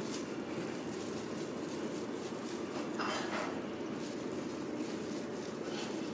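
Light clicking and clinking as kittens bat at a dangling wand toy, over a steady low hum, with one brief falling swish about three seconds in.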